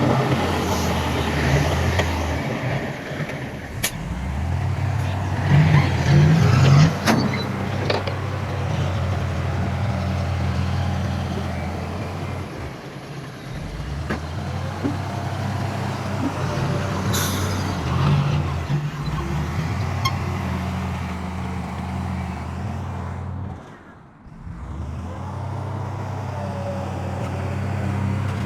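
Heavy diesel engine of earthmoving machinery running steadily, with a few sharp knocks and a brief drop in level near the end.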